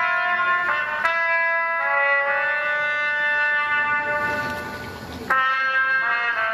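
A lone trumpet playing a slow melody of held notes, one note at a time. About four seconds in it fades briefly, then a new phrase starts sharply.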